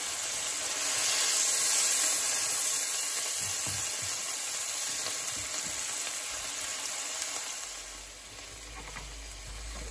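Steak frying in garlic butter in a nonstick frying pan: a steady sizzle as it finishes cooking on its second side, dying down a little near the end.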